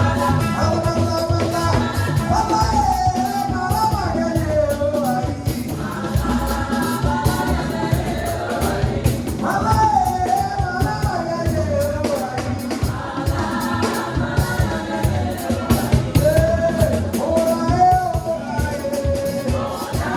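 Live gospel praise music: a singer carrying a gliding melody over a band with a steady, driving drum beat.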